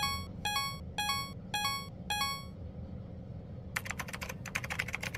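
Intro music: a bright, short note repeated about twice a second, which stops about two and a half seconds in. About a second later a rapid clatter of keyboard-typing sound effect starts as the on-screen title types itself out letter by letter.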